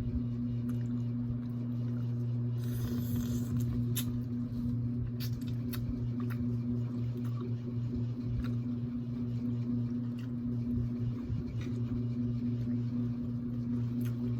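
Crab being eaten by hand: scattered small clicks and cracks of shell, with a short scrape about two and a half seconds in, over a steady low hum.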